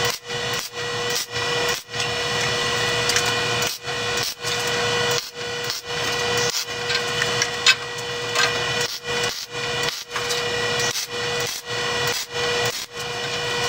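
MIG welder arc crackling on steel pipe in short runs, each broken off by a brief pause about every half second to a second, with one longer unbroken run early on. A faint steady tone from the machine runs underneath.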